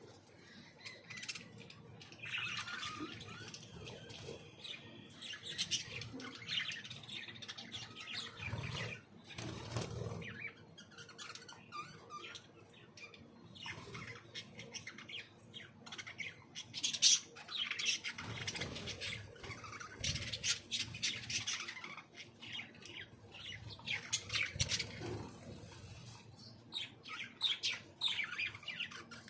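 Aviary birds chirping and squawking in short, overlapping calls, with a few bursts of wing flapping.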